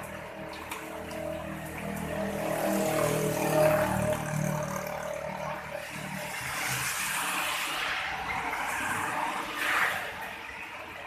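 A motor vehicle passing by, growing louder for a few seconds, staying up, then fading near the end.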